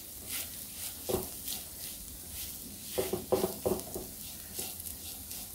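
Faint sizzling of onions and spice powder roasting in butter in a non-stick pan over low heat, with a few soft scrapes of stirring about a second in and again around three seconds in.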